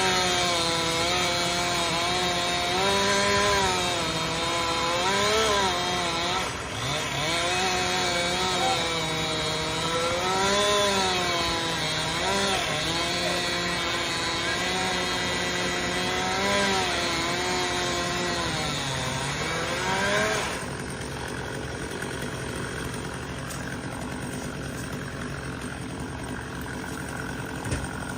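Two-stroke chainsaw cutting through pine, its engine pitch dipping and recovering over and over as the chain bites and loads. About 20 seconds in, the saw cuts out, leaving a quieter steady engine drone.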